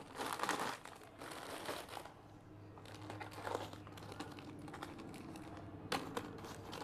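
Plastic jewellery packets crinkling and rustling as they are handled, loudest in the first two seconds, then softer handling over a faint low hum, with a sharp click about six seconds in.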